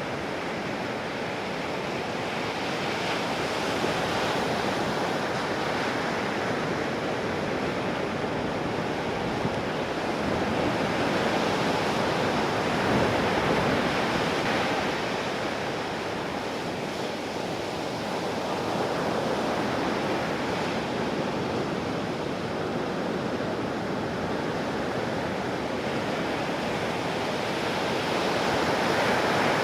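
Big typhoon surf breaking and washing ashore: a continuous rushing roar of waves that swells louder a few times as sets break.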